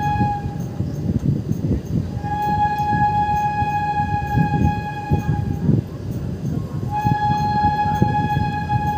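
Train running noise: wheels rumbling and clattering on the rails, heard from a moving passenger coach. Over it a train horn sounds in long, steady blasts: one ending just after the start, one of about three and a half seconds, and one of about two seconds near the end.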